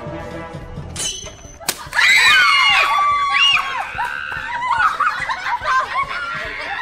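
Suspense music, then a water balloon bursts with a sharp pop about a second and a half in, followed by children shrieking and laughing.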